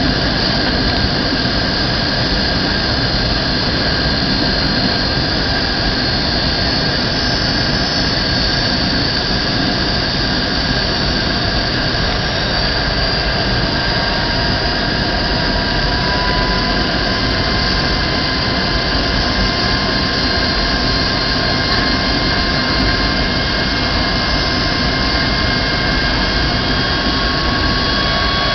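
Jet airliner cabin noise during the approach: a steady loud roar of engines and airflow, with several thin steady whines over it. A further whine comes in about halfway through and rises slowly in pitch.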